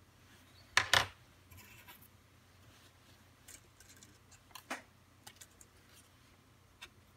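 Small hand tools being put down on a workbench after soldering: a sharp double clack about a second in, then a few lighter clicks and short scrapes.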